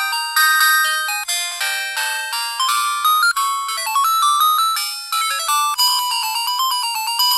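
Huawei A318+ mobile phone playing a polyphonic ringtone: a quick melody of short, high-pitched notes, each fading fast, with no bass.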